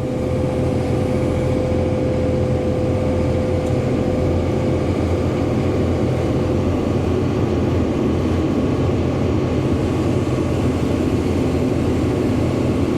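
Excavator's diesel engine running steadily under load as the boom lifts a full bucket of topsoil, with a steady whine over it that fades out about halfway through.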